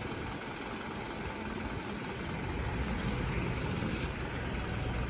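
Fire engine's engine idling, a low steady rumble that grows a little louder about halfway through.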